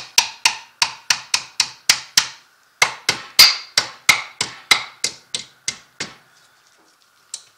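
A mallet hammering on the rear differential of a Can-Am Outlander ATV: a fast run of sharp knocks, about four a second, with a short break about two and a half seconds in. The blows stop about six seconds in, and one more knock comes near the end.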